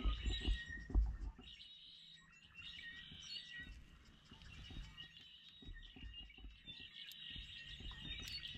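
Birds chirping, with a few low bumps or knocks in the first second or so.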